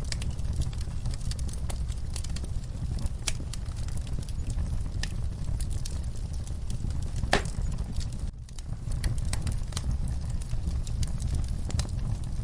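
Wood fire crackling, with irregular sharp pops and snaps over a steady low rumble. The sound drops out briefly about eight seconds in.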